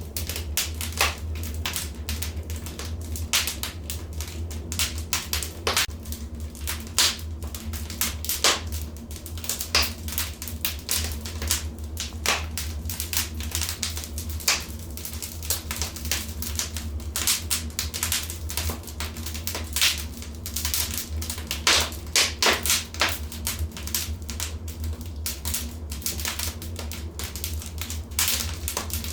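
Wood fire crackling in a fireplace: irregular sharp pops and snaps, with a cluster of louder ones about two-thirds of the way through, over a steady low rumble.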